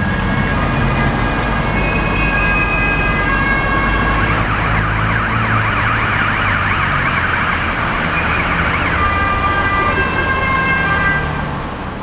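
Emergency vehicle siren sounding in a two-tone pattern, with a stretch of fast rising-and-falling warbling in the middle, over the rumble of road traffic.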